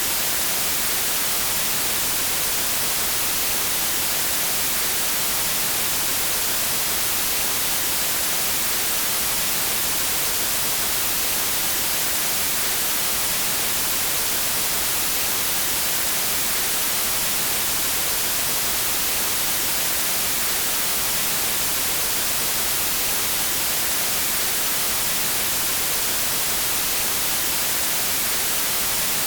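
Radio static: a steady, even hiss, strongest in the high end, with no change in level.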